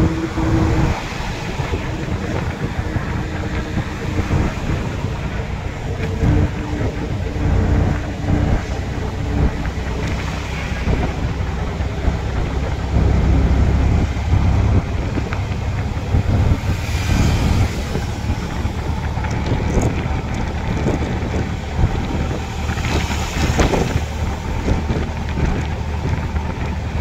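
Road and wind noise of a moving road vehicle, heard from on board: a steady, heavy low rumble with wind on the microphone, and two brief louder rushes later on.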